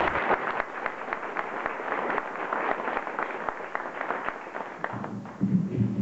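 A crowd applauding with many hand claps, which thin out and fade after about five seconds. A man's voice starts up near the end.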